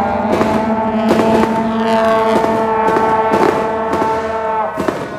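Temple-procession brass band, with trumpets and a sousaphone, holding a long chord over regular percussive beats. The chord breaks off a little before the end.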